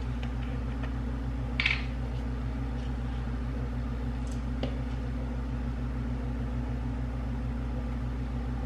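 Steady low hum of a running household appliance or fan, with a few light clicks and a short rustle from a plastic bottle being handled about a second and a half in.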